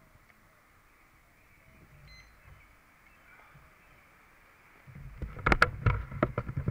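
Faint outdoor background, then from about five seconds in a quick run of sharp knocks, clicks and rubbing as the action camera is picked up and handled.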